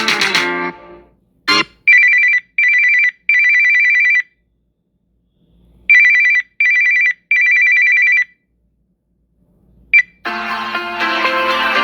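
Samsung Galaxy S23 Ultra playing a telephone-style ringtone: two rings a few seconds apart, each three high pulsing beeps, short, short, then longer. A short click comes before the first ring and after the second.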